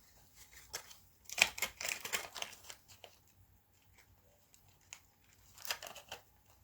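Plastic parts of a battery-operated animatronic toy rustling and clicking as they are handled and fitted back together, in two short bursts, the first about a second in and the second near the end.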